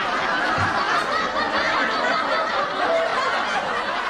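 People snickering and laughing.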